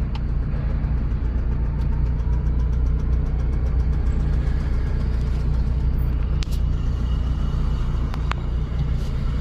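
Lada Priora's four-cylinder petrol engine idling steadily, with a faint regular ticking over the first few seconds. The owner says the engine is knocking and smoking and fears it will soon seize.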